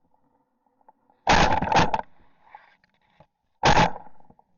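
Shotgun shots at ducks decoying in: a loud blast about a second in, run together with a second close behind it, then another about two seconds later.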